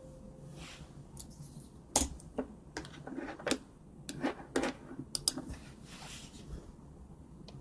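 Irregular clicks and taps of a computer keyboard and mouse, a dozen or so light strokes spread through the stretch, the loudest about two seconds in.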